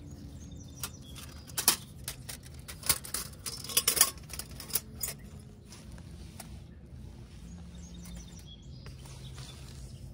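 A folding metal camp stove being taken out of its cloth bag and set up: a run of sharp metal clicks and clacks between about one and five seconds in, with cloth rustling.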